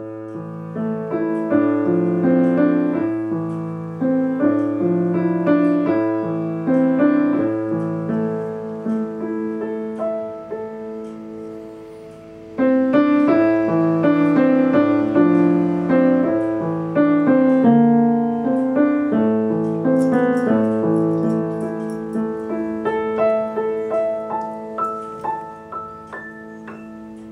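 Piano playing simple beginner pieces: a short tune over repeated bass notes that slowly dies away, then a new piece or section starts loudly about halfway through, each note ringing on.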